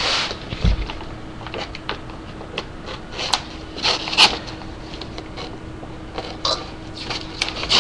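A knife cutting and scraping packing tape on a cardboard box: scattered short scratches and rustles, over a faint steady hum.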